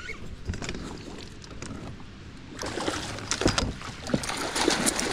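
Water splashing and small knocks against a kayak while a hooked musky is brought alongside. It is fainter at first and grows busier and louder about two and a half seconds in.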